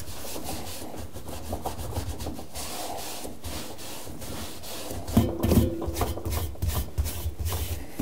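A gloved hand rubbing a paper towel around the rubber door seal and rim of a front-load washing machine, a run of short, irregular rubbing strokes that get louder and heavier about five seconds in.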